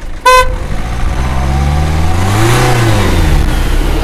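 A short car horn beep, then a car driving past over street traffic rumble, its engine note rising and then falling as it goes by.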